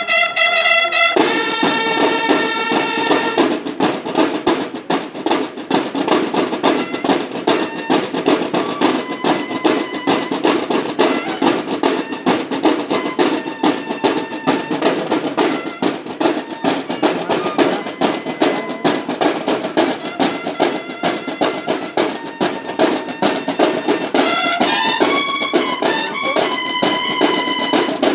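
Banda de guerra (drum and bugle corps) playing: a bugle phrase ends about a second in, then the snare drums play a fast, dense cadence. Near the end the bugles come back in over the drums.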